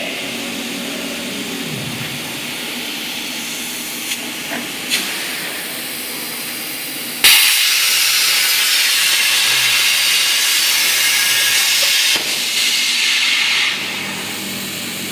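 CNC plasma cutting torch working steel plate, a steady hiss. About seven seconds in it suddenly gets much louder and stays loud for about five to six seconds before dropping back. There are a few light clicks a little earlier.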